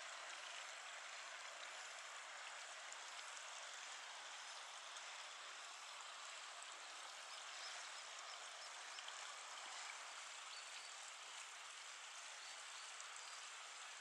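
Faint, steady rushing of a river running over rocks.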